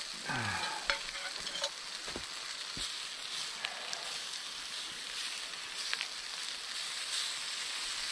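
Slices of Spam sizzling in hot oil in a cast-iron frying pan, a steady frying hiss as they crisp up, with a few light knocks scattered through it.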